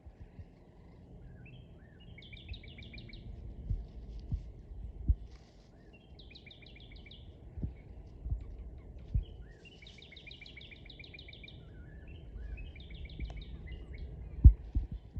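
Northern cardinal singing: several phrases of rapid, repeated slurred whistled notes, with a few short chips between them. Low rumble and scattered dull thumps sit underneath, one loud thump near the end.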